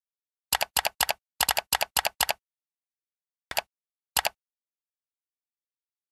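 Typing sound effect: a quick run of about eight keystroke clicks, followed by two mouse-click sound effects, each a quick double click, about a second and a half apart.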